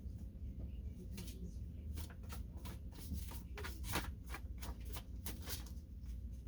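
A deck of divination cards being shuffled and handled by hand: a quick, irregular run of crisp card flicks and slaps over a low steady hum.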